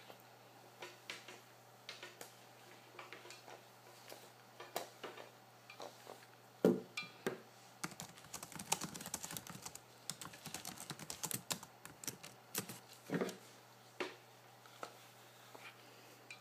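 Handling noise close to the microphone: irregular light clicks, taps and rustling, busiest in the middle, with two louder knocks, one about seven seconds in and one about thirteen.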